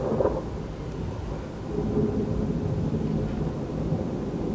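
Thunder from a severe thunderstorm, a low rolling rumble that eases about half a second in and swells again around two seconds in.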